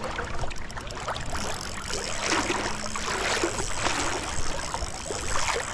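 Sea water swishing and sloshing around an angler's waders as he wades back through it, a swish at each stride.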